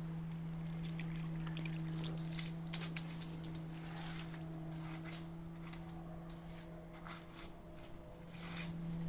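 Concrete poker vibrator humming steadily, weakening in the second half and growing stronger again near the end, with scattered sharp clicks and knocks of site work over it.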